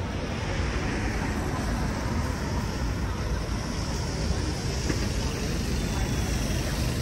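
Road traffic on a city street: a steady wash of engine and tyre noise from passing vehicles.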